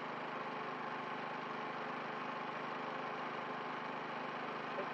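Truck engine idling steadily, an even hum with no change in speed.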